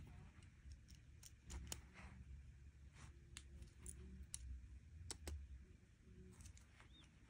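Faint, irregular clicks of plastic Lego Technic beams, pins and connectors being handled and pressed together, over a faint low rumble.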